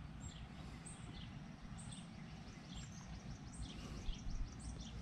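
Small birds chirping, many short high chirps scattered throughout, over a low steady outdoor rumble.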